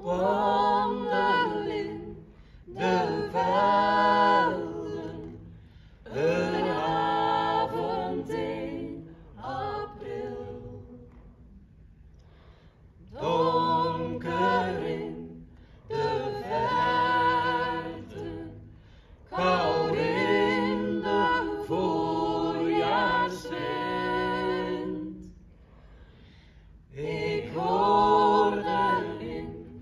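Mixed group of women's and men's voices singing a cappella in harmony, in phrases a few seconds long with short breaks between them and two longer lulls.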